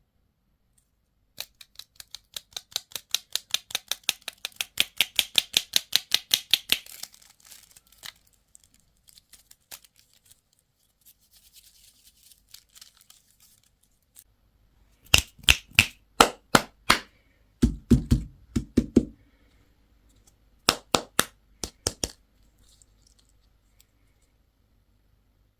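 Rapid runs of small sharp clicks, about seven a second, from handling and opening candy and toy packaging, with a second group of louder clicks and a few dull knocks later on.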